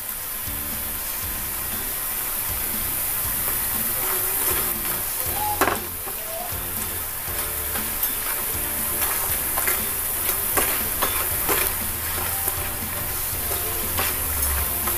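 Triangular rice-flour snack pieces deep-frying in sunflower oil in a pan, a steady sizzle. A perforated spatula stirs them, with a few short scrapes and taps against the pan.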